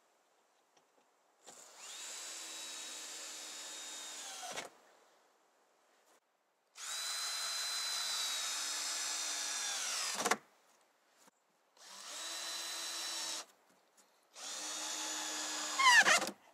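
Cordless drill running in four separate bursts, driving screws through OSB panels into wooden battens. Each run winds down in pitch as the trigger is released, and the last ends with a short, louder rising whine.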